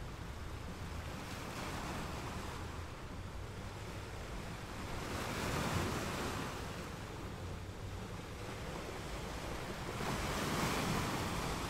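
Sea surf washing over a rocky shore, swelling twice, about halfway through and again near the end, with a low rumble of wind on the microphone underneath.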